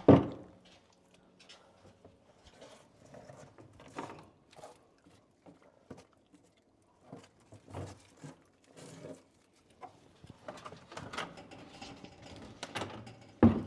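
Handling noises: scattered light clicks, taps and rustles, with a sharp knock at the start and another near the end.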